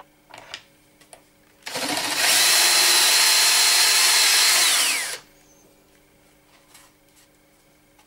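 Cordless drill boring with a piloted cutter through a wooden door's lever spindle hole, truing the hole against the lock follower. It starts about two seconds in, runs at full speed with a steady high whine for about three seconds, then the whine drops in pitch as the drill stops.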